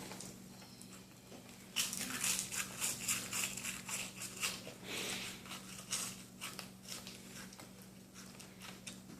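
An animal eating messily: irregular crunching and smacking that starts about two seconds in and thins out after about seven seconds.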